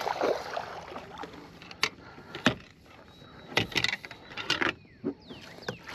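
Scattered sharp knocks and clicks of fishing gear and a landing net being handled in a boat, with a small cluster of them a little past halfway.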